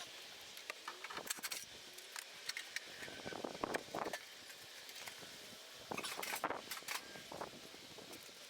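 Scattered light clicks and clatters coming in irregular clusters, a few strokes at a time, over a faint steady hiss.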